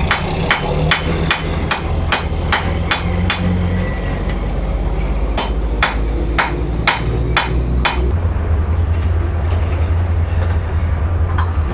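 Blacksmith's hammer striking rebar on the anvil, squaring the round bar off, at about three blows a second in two runs with a short pause between, stopping about eight seconds in. A steady low hum runs underneath.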